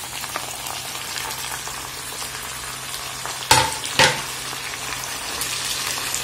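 Boiled mixed vegetables sizzling steadily in hot coconut oil in a nonstick kadai, with two sharp knocks of a metal slotted spoon against the pan about three and a half seconds in as they are stirred.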